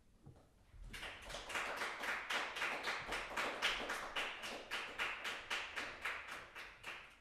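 A small audience clapping after a piano performance, starting about a second in with many quick, even claps, then thinning out near the end.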